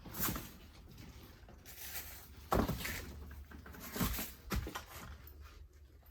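A few scattered knocks and clicks over a faint low hum. The sharpest come about two and a half seconds and four seconds in.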